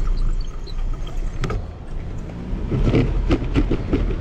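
Steady low rumble of wind on the microphone and tyre noise from a bicycle riding along a paved path, with a sharp click about a second and a half in.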